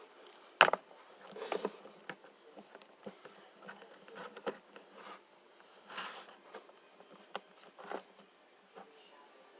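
Plastic action figures being handled and stood up for posing: scattered light clicks, taps and short rustles, with one sharp click about half a second in.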